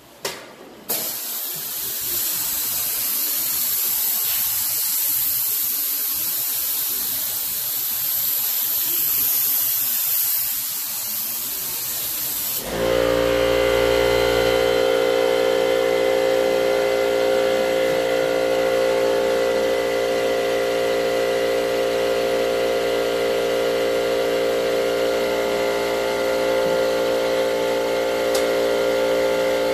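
Spray gun hissing steadily as it sprays activator over hydrographic film floating in the dipping tank. About twelve seconds in the hiss stops abruptly and a steady machine hum takes over.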